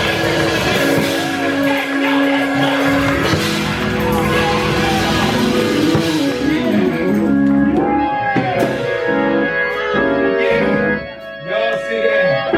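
Live gospel church music: sustained organ chords with drums and cymbals, and a voice singing. The cymbal wash fades out about halfway through, leaving the organ and sung lines, and the music dips briefly near the end.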